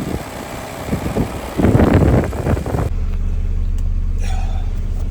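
Car engine sound: a loud rush for about a second, then from about three seconds in a steady low engine hum.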